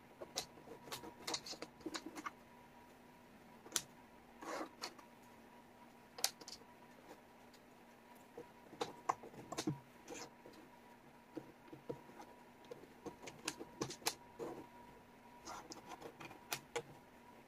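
Wooden jigsaw puzzle pieces clicking and sliding on a tabletop as hands pick up, sort and fit them. There are irregular light clicks and short scraping rustles over a faint steady hum.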